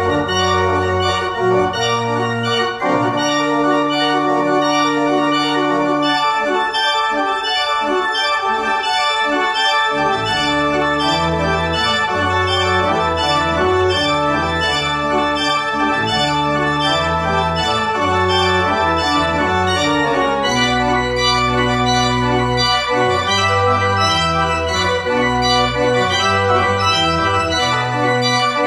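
Organ played on a two-manual organ: sustained chords that change every second or two over a moving bass line. The low bass drops away about three seconds in and comes back about ten seconds in.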